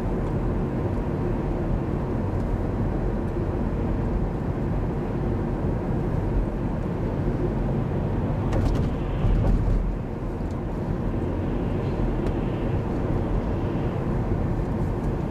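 Road and engine noise inside a moving car's cabin: a steady low rumble, with a brief louder swell about nine seconds in.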